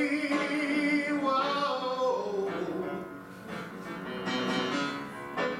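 A man singing a long held note over electric piano accompaniment, with the keyboard playing on after the note ends.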